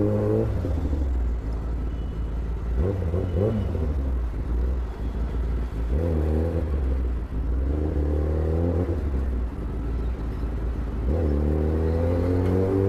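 Kawasaki ZX-10R's inline-four engine being ridden through traffic. It revs up at the start, then the throttle is rolled off, with a few short blips through the middle. Near the end it pulls up steadily again under acceleration.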